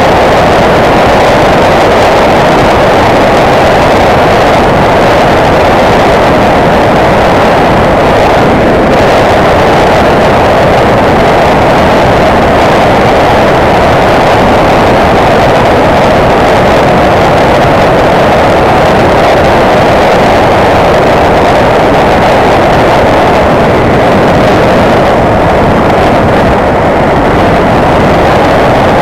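Motorcycle riding at a steady speed: a loud, unbroken rush of wind and road noise over the engine, with no gear changes or revving.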